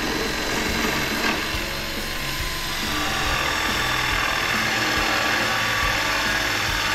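Power drill-driver sinking a screw into the wooden picnic table, a continuous rapid mechanical clatter.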